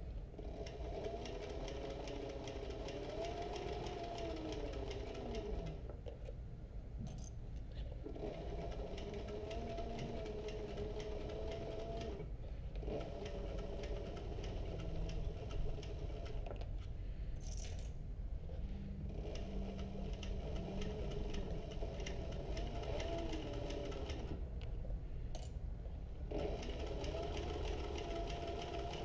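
Industrial sewing machine stitching a seam through soft leather in runs, its motor pitch rising and falling with speed. The stitching stops briefly several times while the bag is turned under the presser foot.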